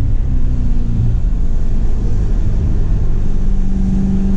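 C7 Corvette Grand Sport's V8 running, heard from inside the cabin as the car drives a wet track, as a steady low hum that settles into one even tone about two seconds in. Under it is a steady hiss of road and spray noise.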